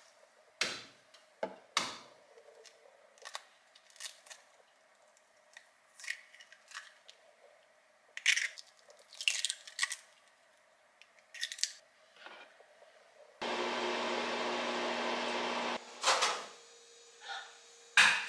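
Scattered light clicks and knocks of food being prepared in a ceramic bowl, including an egg tapped and cracked open. About three-quarters of the way through, a steady machine hum runs for about two seconds and stops suddenly, followed by a few more knocks.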